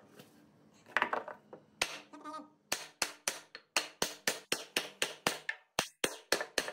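Steel hammer tapping on pine to drive a rail's end into the slot of a table leg base. A few separate knocks come first, then quick, even blows at about five a second.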